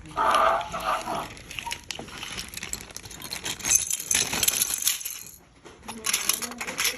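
Small hard plastic toy pieces clattering and rattling as they are rummaged through, with a short lull about five and a half seconds in.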